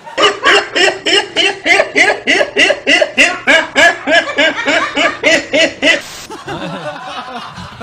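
A man laughing loudly in a fast, even run of "ha" bursts, about four a second, for some six seconds. The laugh is cut off by a short burst of TV static hiss.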